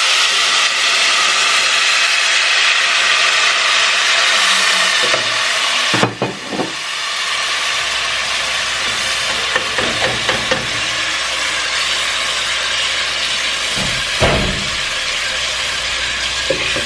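Blended tomato, onion and garlic purée hitting hot oil in a pot, sizzling loudly with a steady hiss. After a knock about six seconds in, the sizzle eases a little and the sauce keeps frying, with a few short knocks of a ladle against the pot.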